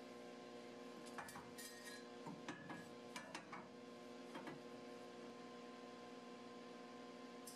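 Faint music with a held chord, and a few light metallic clinks as the steel upright tube is set in place against the frame.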